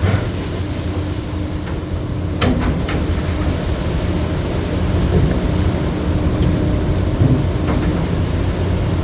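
Steady low rumble of a crab-fishing boat's engine and deck machinery, with a steady hum and a few sharp knocks, two about two and a half seconds in and one near the end.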